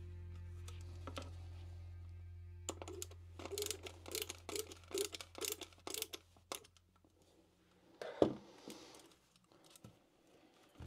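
Small clicks and taps of hands handling and working on a plastic RC truck roof part with its metal spotlight bar, several a second for a few seconds, over a low steady hum, with one sharper knock about eight seconds in.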